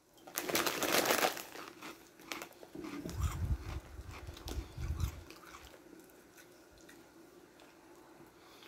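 A crunchy Cheeto (Mexican Street Corn flavour) crunched between the teeth for about a second, then a few seconds of gulping from a drink can.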